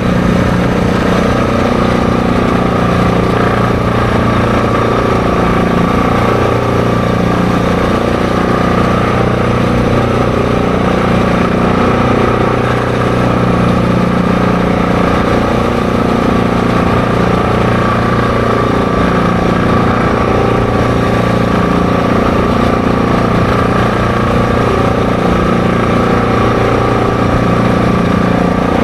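ATV engine running at a steady cruising speed, holding an even pitch.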